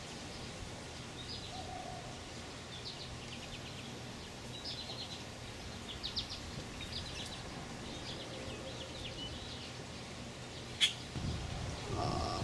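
Bird chirps: short bursts of quick, high chirping notes repeating every second or so over a faint outdoor hiss. A single sharp click about eleven seconds in.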